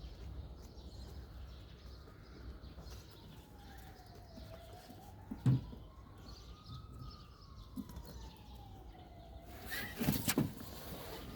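Faint emergency-vehicle siren wailing slowly up and down over a low city rumble. A sharp knock about halfway through and a couple more near the end are louder than the siren.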